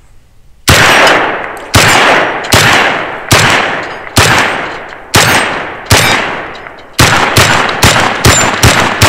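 SDS Imports Lynx 12, an AK-pattern semi-automatic 12-gauge shotgun, firing a string of about a dozen loud shots, each with a decaying echo. The first shots come about a second apart, then they speed up to two or three a second near the end.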